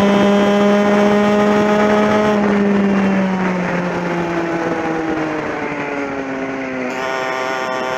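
Kart racing engine at high revs, heard onboard; about two and a half seconds in the revs fall away steadily for several seconds as the throttle is lifted, then climb again near the end as the kart accelerates.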